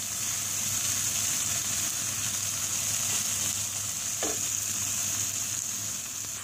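Onion, tomato and garlic dressing sizzling steadily in a nonstick frying pan while a wooden spatula stirs and pushes it around.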